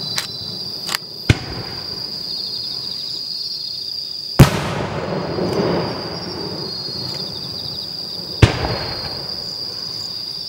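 Aerial fireworks shells bursting: a few small pops in the first second and a half, then two loud booms about four seconds apart, each trailing off in an echo. Insects chirp steadily throughout.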